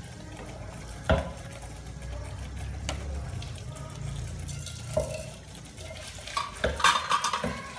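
Metal ladle stirring small shrimp in a steel pot of boiling water, knocking against the pot's side now and then, with a quick run of clinks near the end, over a low steady rumble.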